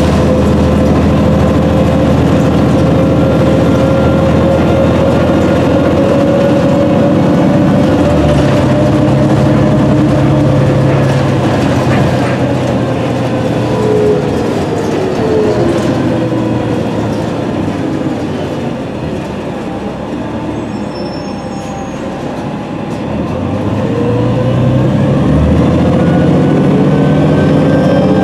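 A 2006 New Flyer D40LFR transit bus, heard from inside the cabin: its Cummins ISM diesel engine and Voith automatic transmission drone steadily under way. About halfway through the pitch falls and the sound grows quieter for a few seconds as the bus eases off, then it rises again as the bus pulls away.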